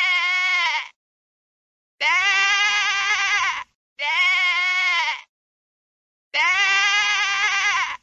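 Sheep bleating four times, each bleat about a second or more long with a wavering, quavering pitch, separated by short silences.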